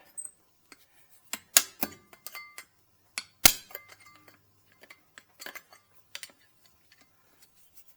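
Metal tools tapping and clicking against a thin chrome foil lug nut cap as it is worked off a rusted lug nut. The taps are scattered and uneven, a few ring briefly, and there is one sharper strike about three and a half seconds in.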